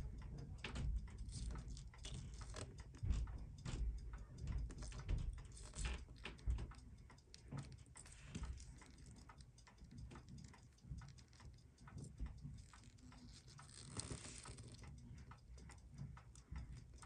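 Steel tweezers clicking and tapping faintly and irregularly on the small metal parts of a Seiko 6217 watch movement as its dial-side calendar works are taken apart. A brief soft rustle comes near the end.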